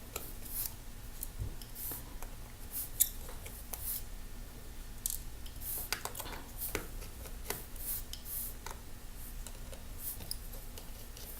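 Small repair tools working on an iPhone 6 during disassembly: irregular short clicks, ticks and light scrapes of metal and plastic.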